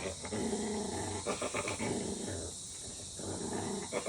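Puppy growling in three rumbling bouts at its own reflection in a window, which it takes for another dog.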